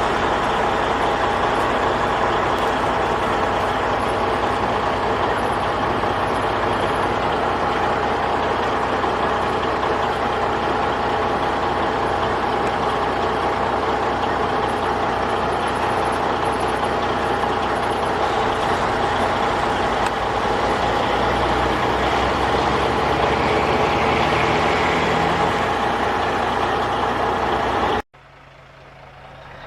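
Diesel engine of a Peterbilt 359 log truck running steadily under load, a low rumble with a constant high whine over it. It cuts off suddenly near the end.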